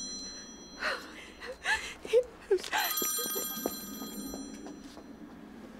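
Mobile phone ringtone: a ring of several steady high tones sounds for about a second and a half, starting about three seconds in. Before it comes a few short sounds from a woman's voice, the loudest about two seconds in.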